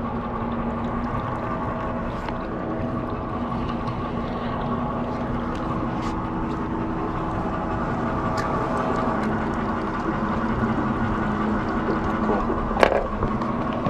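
Boat engine running steadily at idle, a low hum of constant tones. A single sharp knock comes near the end.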